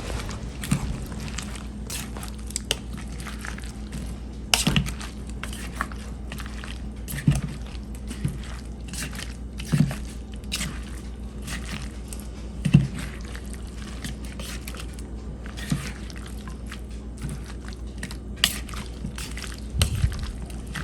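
Tongs tossing shredded pheasant meat in buffalo sauce and ranch in a bowl: wet squishing with irregular clicks and knocks of the tongs against the bowl, over a steady low hum.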